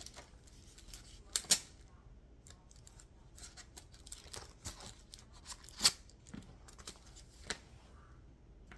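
Large, freshly sharpened knife blade cutting open a paper envelope: paper rustling and tearing, with three sharp louder snaps spread through, about one and a half, six and seven and a half seconds in.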